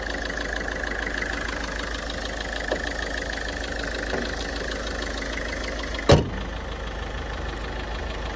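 Ford Figo turbo-diesel engine idling steadily just after a carbon-cleaning treatment of its intake. A single sharp knock sounds about six seconds in, louder than the engine.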